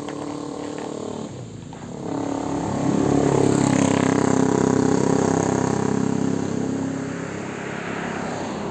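A motor vehicle's engine running, its pitch climbing slightly and the sound growing louder from about two and a half seconds in, then easing off toward the end.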